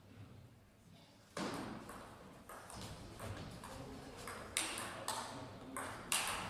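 Table tennis rally: sharp, short clicks of the ball striking the rackets and the table, several of them about half a second apart in the second half, over a steady murmur in a large hall.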